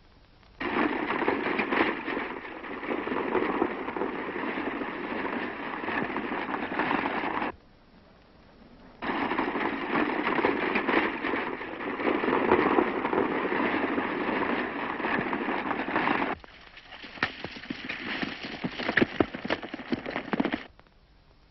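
Old film action sound effects: a dense crackling, rattling din that cuts in and out abruptly in three blocks. The last block is quieter, with a run of sharp cracks.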